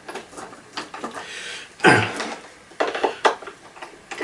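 Irregular clicks and clatter of a Phillips screwdriver working screws out of a plastic vacuum cleaner housing, with one louder knock about two seconds in.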